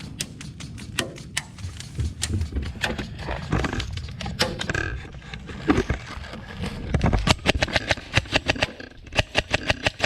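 Airsoft guns firing: many sharp clacks, some coming in fast even runs like full-auto bursts.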